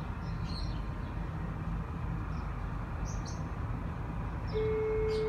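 A few short, high bird chirps over a steady low rumble of outdoor background noise. About four and a half seconds in, a single held musical note starts.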